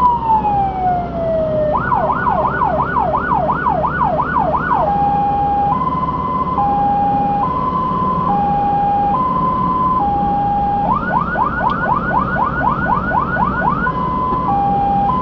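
Fire engine's electronic siren switching through its patterns: a falling wail at the start, then a fast rising yelp of about three sweeps a second, then a two-tone hi-lo alternating about once a second, a second stretch of even faster yelp, and back to hi-lo near the end. Under it runs the truck's engine and road noise.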